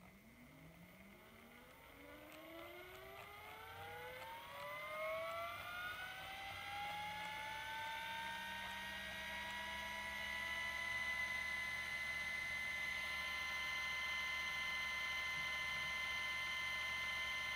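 Motor of an IKA Eurostar 60 digital overhead stirrer, running with an empty chuck, whining as its speed is turned up to its 2000 rpm maximum. The pitch rises over about ten seconds, then holds steady at top speed.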